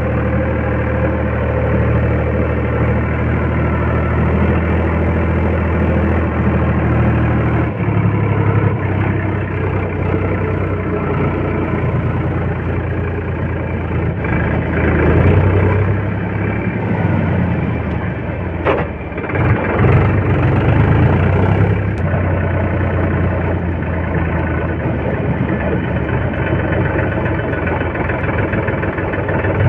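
Heavy diesel engine running, its note dropping about a third of the way in and rising and falling with load through the middle, with one brief knock partway through.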